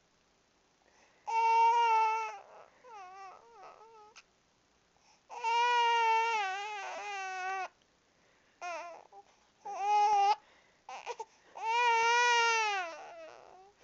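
Baby crying in a series of wails, each a second or two long with short pauses between, the pitch wavering within each wail; the crying is brought on by hiccups.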